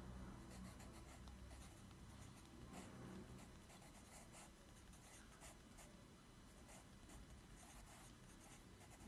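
Pencil writing on a paper workbook page: faint, irregular scratching strokes.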